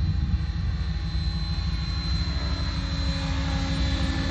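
Synergy E5 electric RC helicopter in flight: a steady high whine from its electric motor and drivetrain over the low, fluttering noise of the spinning rotor blades.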